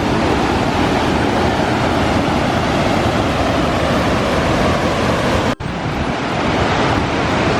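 Vazhachal waterfall's water falling and rushing in a loud, steady wash of noise, broken once by a brief dropout about five and a half seconds in.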